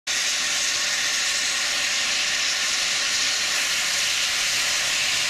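Rolls-Royce Avon turbojets of English Electric Lightning jet fighters running on the ground during start-up: a loud, steady hiss with a faint steady whine underneath.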